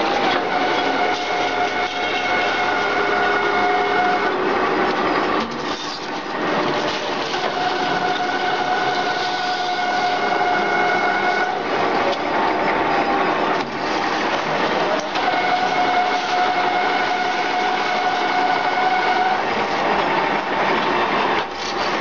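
Radiator recycling machine running and cutting up scrap air-conditioner radiators: a continuous rough cutting noise with a whine that fades in and out about every eight seconds.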